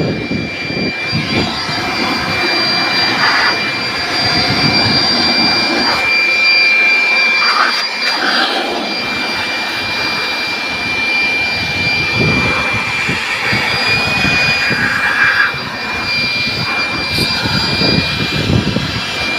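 Battery-powered electric blower running with a steady high whine over rushing air, blowing dust out of the machine, with some knocks and rustles along the way.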